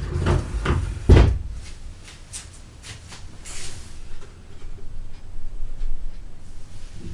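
A quick cluster of knocks and bumps of household handling, like a cupboard door or objects being moved, the loudest about a second in, followed by scattered light clicks and a short rustle.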